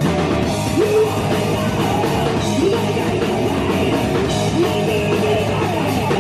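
Horror-punk rock band playing loud and steady: electric guitar, bass and drums, with a voice singing in short phrases.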